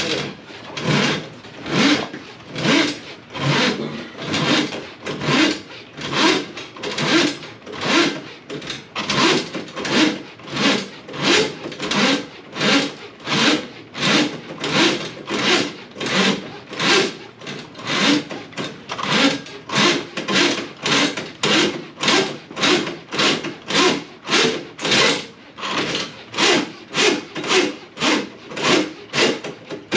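Steady rhythmic rasping, a little under two strokes a second, like a tool being worked back and forth.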